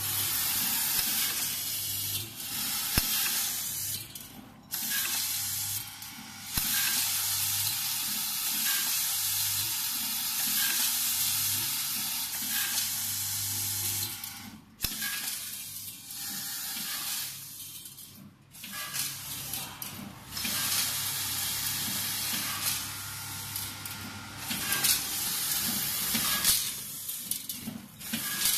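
Vibratory bowl feeder running: a dense, hissing rattle of many small steel screws shaking around the stainless bowl and up its spiral track, over a low hum that stops and starts several times.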